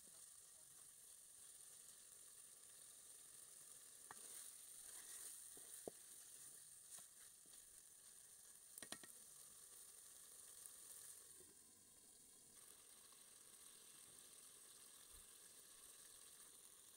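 Chicken pieces sizzling quietly as they fry in oil in a metal pot while being stirred with a wooden spatula, with a few knocks of the spatula against the pot about four to six seconds in and again around nine seconds.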